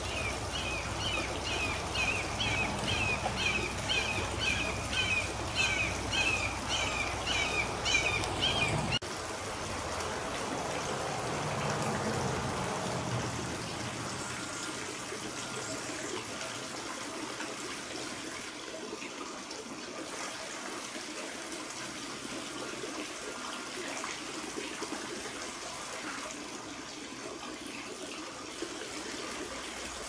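A raptor calling overhead: a long run of repeated call notes, about two a second, over the trickle of a garden fountain. The calls stop abruptly about nine seconds in, leaving the fountain's water trickling and splashing.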